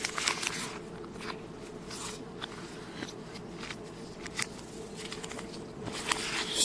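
Scattered soft rustles and clicks of a Blu-ray case and its packaging being handled, played backwards, over a faint steady hum.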